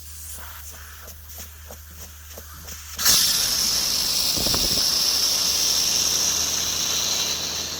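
Air hissing out of a mower tire through the seated Stop & Go plugger nozzle once the probe tool is out of it. The hiss starts suddenly about three seconds in, runs steadily for about four seconds and then eases off, after a few faint clicks of tool handling.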